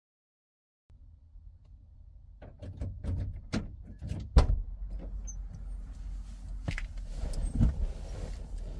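Scattered clicks and knocks of someone handling things inside a parked car's cabin, with one sharper knock about four seconds in, over a low steady rumble.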